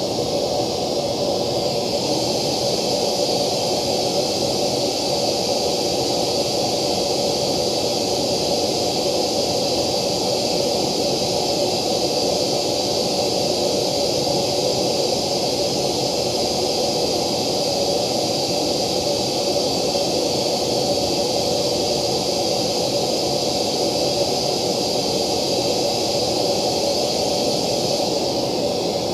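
Steady hiss of a test-noise signal played through a loudspeaker with a JBL ring-radiator tweeter. The treble changes about two seconds in and changes back near the end, as a clear acrylic slant-plate acoustic lens is set in front of the tweeter and then taken off.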